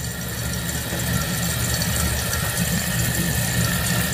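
Toilet flushing as a test of the newly replaced fill valve: water rushes out of the tank through the flush valve with a steady low rumble, while the fill valve hisses as it refills.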